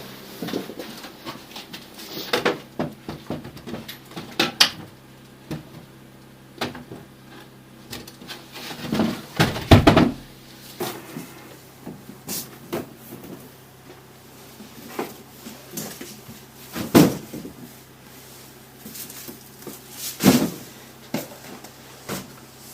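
Irregular knocks and clunks, like doors or objects being handled, with the loudest cluster about ten seconds in and two more sharp knocks later. A steady low hum runs underneath.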